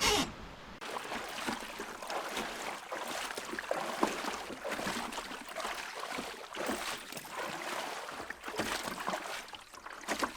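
Water splashing and sloshing irregularly around a canoe in shallow water.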